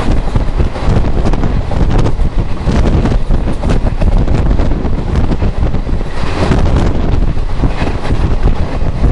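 Loud, steady rush of wind buffeting the microphone, over the rumble of a vehicle travelling at speed, heard from its side window.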